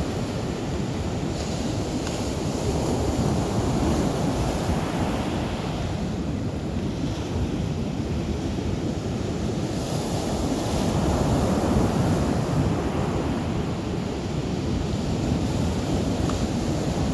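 Ocean surf washing ashore, a steady rushing that swells and eases every several seconds, mixed with wind.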